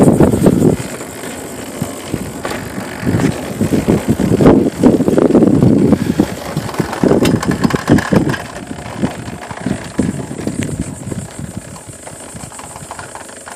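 Wind buffeting the microphone in uneven gusts while riding along on a trike, with a few brief clicks and rattles.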